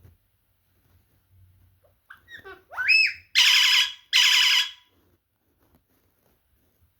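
Parrot calling: a few soft chirps, a whistle rising in pitch, then two loud harsh screeches in quick succession.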